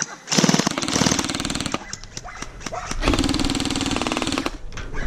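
Jin Ming M4A1 Gen 9 gel blaster firing on full auto from its electric gearbox: two bursts of rapid, evenly spaced shots, the first starting about a third of a second in and the second about three seconds in, each about a second and a half long.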